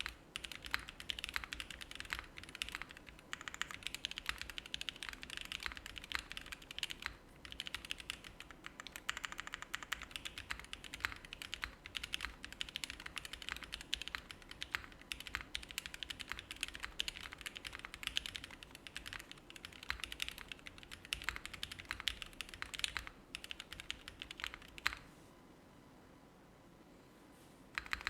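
Typing on an Aksara CE custom mechanical keyboard with lubed linear Cherry top creamsicle frankenswitches in an FR4 plate and GMK ABS keycaps: a steady stream of rapid keystroke clicks. The typing stops about 25 s in for a few seconds, leaving a faint background buzz, then a fast burst of keystrokes starts again near the end.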